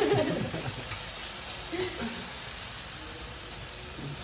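Steady hiss of food frying in hot oil in a pan.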